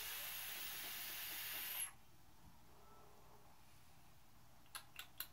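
Steady hiss of a Joyetech eVic VTC Mini vape with a 0.25-ohm coil build, fired in bypass mode and drawn on for about two seconds, then cutting off sharply. A few faint clicks follow near the end.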